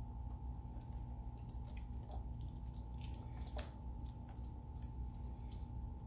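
Scattered light clicks and taps of hand tools and small parts being handled on the outboard, over a steady low hum with a faint steady higher tone.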